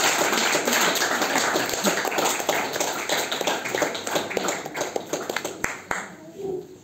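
Small audience applauding, the clapping thinning out and dying away near the end.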